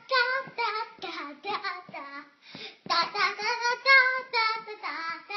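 A child singing in a high voice, a sing-song tune with rising and falling pitch.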